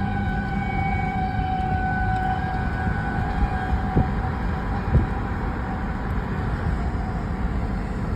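Outdoor tornado warning siren sounding a steady tone, fading out about three seconds in, over a steady low rumble. Two light knocks come about a second apart near the middle.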